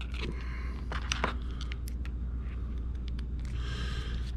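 Scattered small clicks and light scraping from handling a disassembled hobby servo's case and parts and prying at it with a screwdriver, over a steady low hum.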